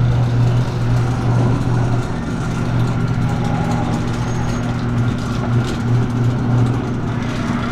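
A machine motor running steadily with a constant low hum.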